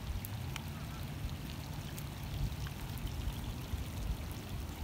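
Steady low rumble with a few faint ticks, picked up by a phone microphone clipped to a belt.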